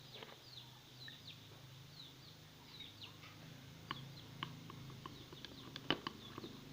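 Faint, repeated short high chirps of birds in the background, each note falling in pitch, with a few sharp clicks about two-thirds of the way through over a steady low hum.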